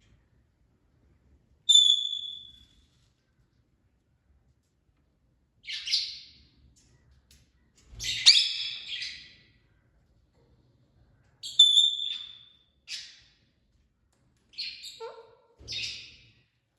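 Parrot calls with pauses between them: two clear whistles, harsh squawks (the loudest about 8 seconds in), and a quick run of calls near the end, one of them dropping in pitch.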